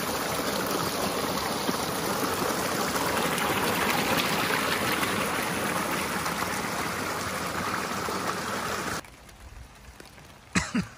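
Shallow river water running and trickling steadily, cutting off abruptly about nine seconds in. After that it is much quieter, with a brief sharp knock near the end.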